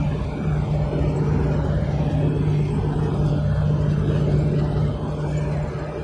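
Large bucket-wheel excavator running in an open-pit mine: a steady mechanical drone with a constant low hum under a rumbling noise, easing slightly near the end.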